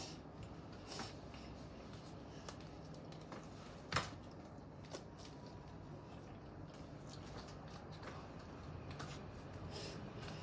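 Scattered faint clicks and crinkles of a child handling and eating a piece of soft bread, with one sharper click about four seconds in.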